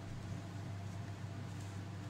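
A steady low hum with a faint hiss; the pour of cake batter into the tin is not plainly heard.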